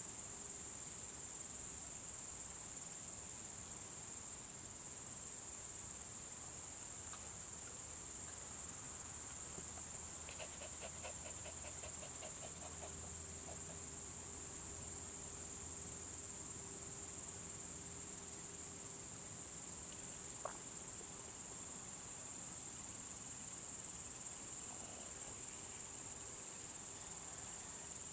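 Steady, high-pitched chirring of a night chorus of crickets that runs on without a break. About ten seconds in, a brief run of about eight quick, faint notes sounds over it.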